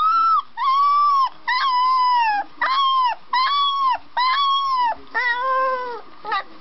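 Puppy howling: a run of about seven high-pitched, drawn-out calls, each rising and then falling, with short breaths between them.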